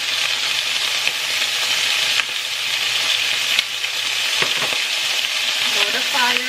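Thin pork slices sizzling as they brown in hot oil in a pan: a steady hiss with a few sharp clicks. A short pitched sound bends up and down near the end.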